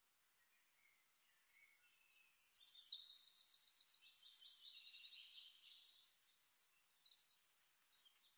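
Songbirds singing: high, rapid trills and chirps that start about one and a half seconds in, loudest at first and then softer twittering.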